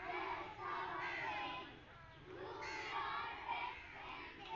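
A group of children singing a song together in high voices, in short phrases.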